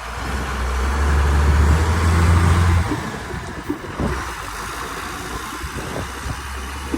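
Tata 10-wheeler truck's diesel engine running as the loaded truck drives over rough field ground, pulling harder and louder for the first few seconds, then easing to a lower, steady running note.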